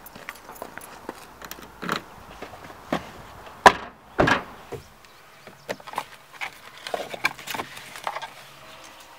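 A car door opened and shut, a sharp latch click followed by a heavier slam about half a second later, then light clicks and handling noises from hands working inside the car.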